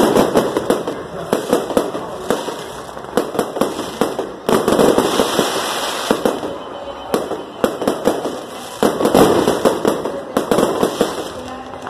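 Aerial fireworks display: a dense, continuous run of bangs and crackles, with heavier barrages starting suddenly about four and a half seconds in and again about nine seconds in.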